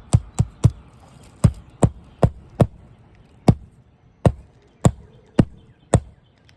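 Hammer driving roofing nails through asphalt shingles: about a dozen sharp, separate strikes, two or three a second in short runs with brief pauses between them.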